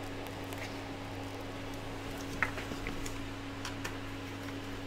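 Light clicks and taps of 3D-printed plastic buffer plates and a screwdriver being handled, one sharper click about two and a half seconds in, over a steady low hum.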